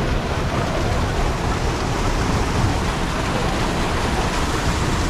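Steady rushing noise of rain and muddy storm runoff pouring off the road into a grassy ditch, with a constant low rumble underneath.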